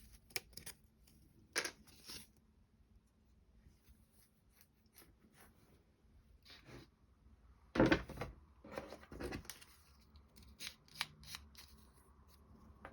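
Small wooden clock-kit parts being handled and fitted by hand: scattered light clicks and taps, with one louder knock about eight seconds in.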